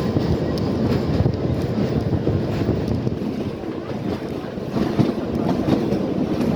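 Kalka–Shimla narrow-gauge toy train running, heard from on board: a steady rumble of wheels on rail with a few light clicks and wind on the microphone.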